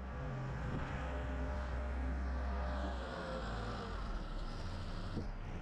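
An engine running steadily with a low rumble, its pitch shifting slightly about three seconds in.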